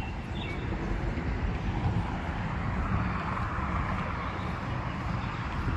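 Steady rumble of passing road traffic, swelling slightly around the middle.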